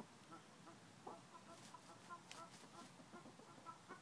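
Hens clucking faintly: a string of short, soft notes, with a few faint clicks about halfway through.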